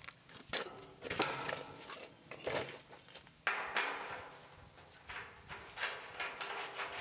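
Irregular metallic scrapes and clinks of a threaded fitting being worked by a gloved hand on the underside of a steel tank, several strokes spaced about half a second to a second apart, the loudest about halfway through.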